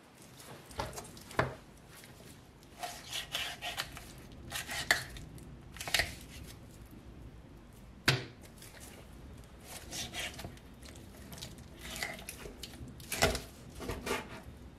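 A whole raw chicken is handled and cut with a kitchen knife on a plastic cutting board, making irregular knocks and taps as the bird is turned and the knife works at a joint.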